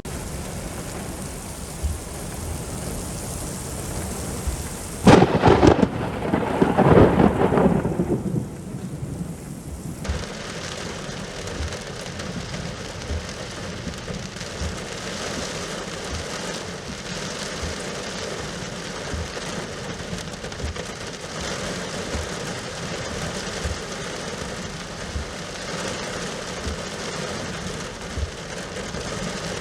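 Steady rain falling during a severe thunderstorm, with a sharp thunderclap about five seconds in that rumbles for a few seconds and dies away.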